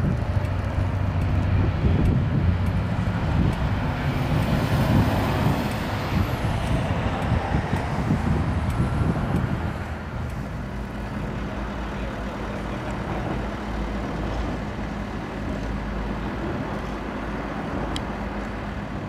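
Road traffic with heavy vehicle engines running: a dense low rumble, heavier for the first ten seconds, then steadier and a little quieter with a constant hum.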